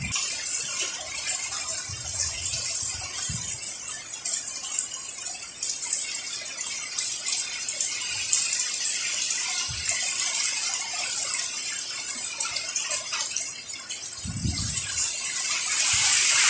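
Severe tropical storm wind and heavy rain: a steady loud hiss with a rattling running through it. A few deep gusts buffet the microphone, the strongest near the end.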